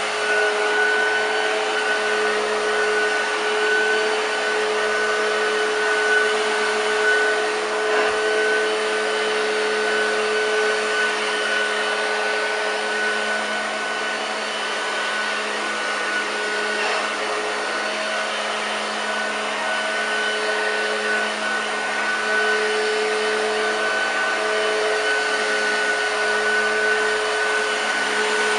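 A restored 1970s Hoover Junior U1016 Dirtsearcher upright vacuum cleaner running steadily on carpet, a continuous motor whine with a clear steady tone. The tone weakens for a while midway, then comes back. It is in good order, sounding like new.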